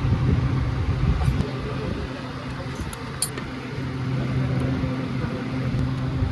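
Motorcycle engine running steadily, a low even hum with a rough rumble underneath.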